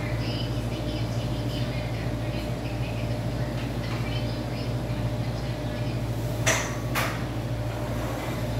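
A steady low machine hum. Near the end, two sharp knocks come half a second apart.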